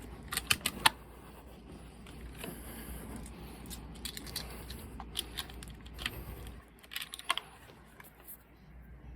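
A quick run of four sharp clicks about half a second in, the last the loudest, then scattered softer clicks and taps over faint background hiss.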